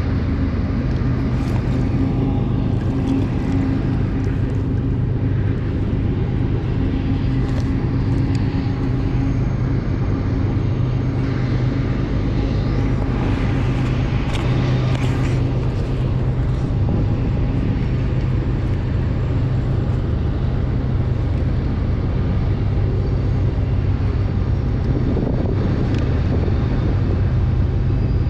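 Loud, steady rush of the snowmelt-swollen Upper Sacramento River, with a low steady hum underneath and a few faint ticks.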